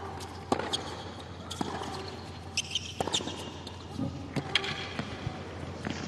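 Tennis ball struck back and forth in a hard-court rally: sharp racket hits about a second to a second and a half apart, with short high squeaks between them.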